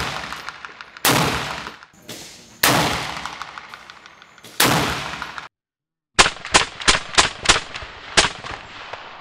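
Paratus .308 semi-automatic rifle with a suppressor, firing. Three single shots come about one and a half to two seconds apart, each ringing out for about a second. After a short break there is a quicker string of six shots, about three a second.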